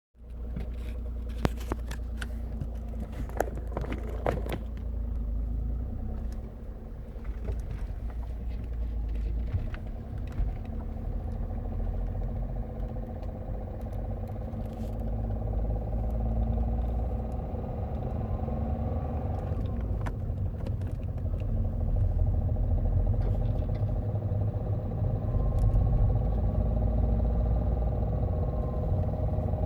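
Opel Astra H's 1.7 CDTI four-cylinder turbodiesel engine running, with a clattering knock that the owner says is there from cold, stays when warm, and follows engine speed. A few sharp clicks stand out in the first few seconds.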